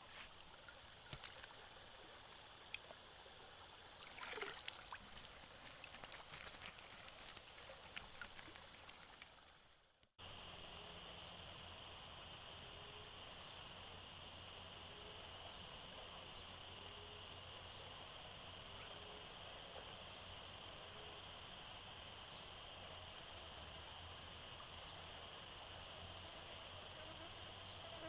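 Steady, high-pitched chorus of insects chirring, with a faint chirp repeating about every second and a half. For roughly the first ten seconds there are quieter rustles and light clicks, which fade out before the chorus comes in.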